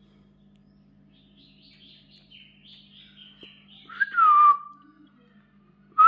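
Pet parakeets chattering softly in a quick run of high notes, then one loud clear whistle about four seconds in that slides up and falls back to a held tone; a second whistle starts right at the end.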